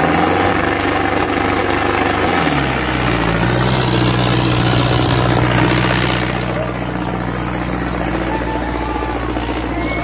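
Sonalika DI 750 tractor's diesel engine working under heavy load as it drags a weighted harrow through soft soil. Its pitch drops about two seconds in, then holds steady.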